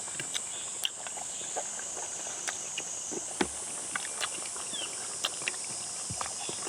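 Mouth sounds of people eating chewy boiled beef head meat: scattered smacks and clicks, with taps of utensils. Underneath, a steady high drone of summer insects that shifts slightly higher about three seconds in.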